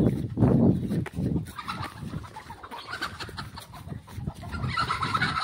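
Free-roaming desi chickens clucking and squawking in alarm as they are chased. The calls come in short repeated bursts that grow strongest near the end. Loud thumping and rustling of someone running through grass comes first, fading after about a second.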